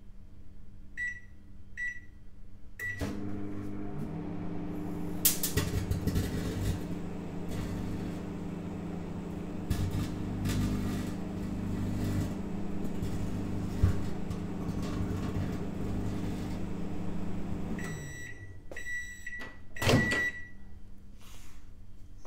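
Microwave oven keypad beeping three times, then the oven running with a steady hum for about fifteen seconds, with sharp crackling snaps from the RFID card arcing and burning inside. Near the end the hum stops and the end-of-cycle beeps sound, with a loud thump among them.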